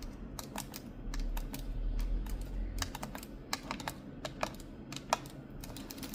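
Computer keyboard typed with long fingernails: irregular clicking keystrokes, a few a second. A low rumble runs underneath from about one to three seconds in.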